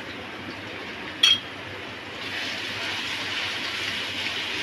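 Onions and ginger-garlic paste sizzling in hot oil in a wok. The spatula clinks once against the pan about a second in, and from about two seconds in the sizzle grows louder and steadier as the paste is stirred into the oil.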